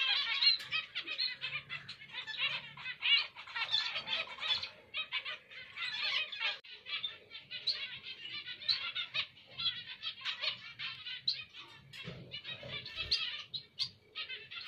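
Several zebra finches calling and singing together: a dense run of short, nasal beeps and chatter that comes in clusters with only brief gaps.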